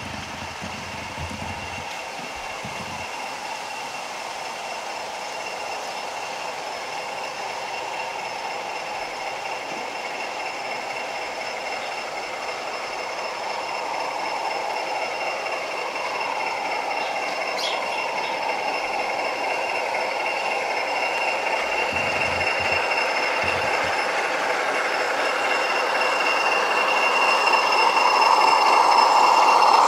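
OO gauge model diesel locomotive hauling a train of coaches along garden-railway track: the whine of its electric motor, with a constant high tone, and the running noise of the wheels on the rails, growing steadily louder as the train approaches.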